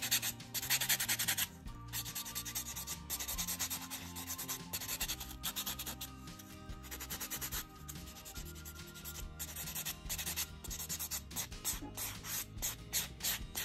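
Nail buffer block rubbing over acrylic nails in rapid back-and-forth strokes, smoothing the filed surface.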